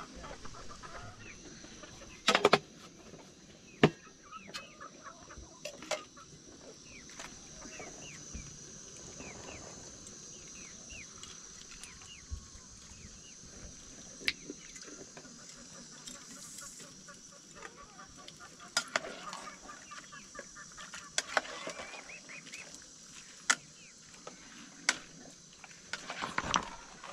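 Chickens clucking, with a series of sharp metal clinks from a cooking pot and its lid being handled at a gas stove.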